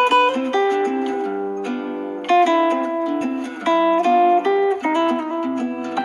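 A Samsung Galaxy S6 edge+ ringtone playing: a quick, plucked-sounding melody over chords.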